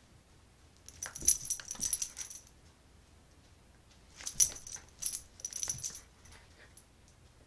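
Metal tag on a Jack Russell terrier's collar jingling in two bouts, about a second in and again around four seconds in, as the dog moves and jumps up at bubbles.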